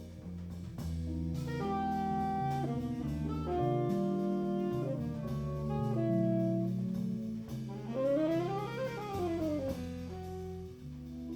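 A jazz quartet of saxophone, keyboards, bass and drums playing live: saxophone melody in long held notes over walking bass notes and cymbal ticks, with a quick run of notes up and back down about eight seconds in.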